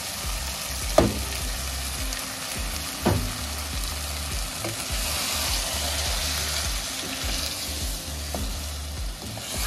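Chicken curry masala with freshly added ground tomato sizzling and frying in the pan while it is stirred, with a steady hiss. A utensil clinks against the pan about a second in, again about three seconds in, and more faintly later; the first clink is the loudest.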